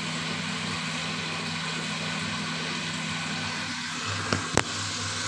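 Steady kitchen hiss with a low hum underneath, broken by two sharp clicks a fraction of a second apart near the end.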